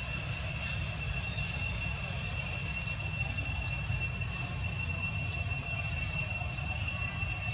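Steady, high-pitched insect drone holding one even pitch, over a constant low rumble.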